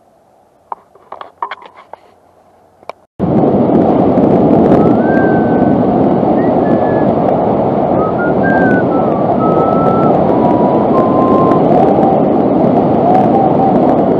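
A few faint clicks and rattles, then about three seconds in a loud, steady rush of wind buffeting the microphone starts abruptly, as when riding a bicycle at speed, with faint wavering whistles over it.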